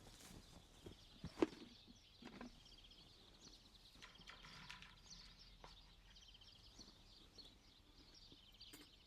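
Quiet outdoor ambience with faint, repeated short trilling calls from birds or insects. A single sharp knock comes about a second and a half in.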